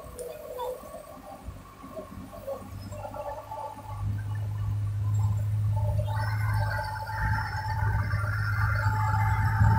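UD Quester truck's diesel engine pulling a heavy crane load up a steep hairpin, a steady low drone that grows louder about four seconds in. Higher wavering tones join it about six seconds in.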